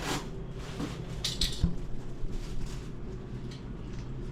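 Steady low hum of a shop's background, with a few brief knocks and rustles about a second and a half in.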